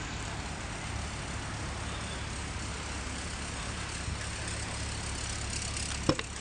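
A car engine idling steadily with a low hum, and two sharp clicks near the end.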